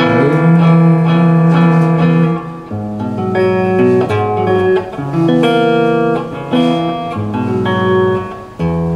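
Guitar played solo, plucked and strummed chords ringing out and changing every second or two: a warm-up run-through to try the guitar before the song.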